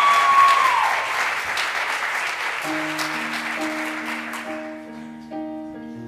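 A choir's held final note cuts off about a second in and the audience applauds, the clapping fading away over the next few seconds. From about halfway through, a keyboard plays slow, sustained chords as the introduction to the next song.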